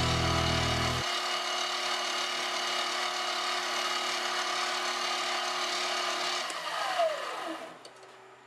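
Mini metal lathe running, with a turning tool cutting across the face of a steel cam disc. Near the end the motor is switched off and its pitch falls as the spindle spins down, leaving a faint hum.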